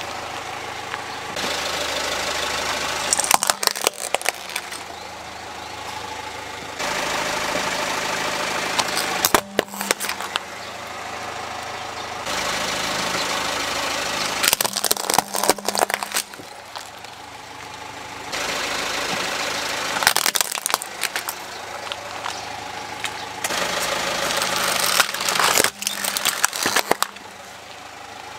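Car engine running while a tyre rolls over small plastic toys on gritty concrete, cracking and snapping them. The sharp cracking comes about five times, each a short cluster of snaps, with abrupt changes in the background between them.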